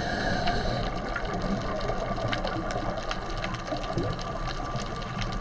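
Underwater ambience picked up by a diver's camera: a steady hiss and hum with a few faint steady tones and many small scattered clicks.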